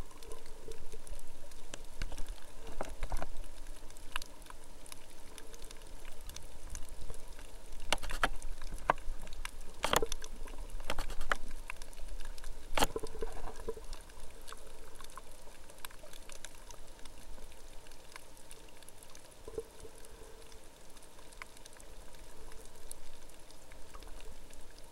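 Water sloshing and rumbling against a camera held underwater, with scattered sharp clicks and crackles, a few louder ones around the middle.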